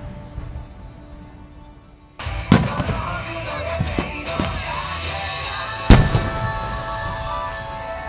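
Aerial firework shells bursting over music: a sharp bang about two and a half seconds in with a few smaller pops after it, then the loudest bang about six seconds in.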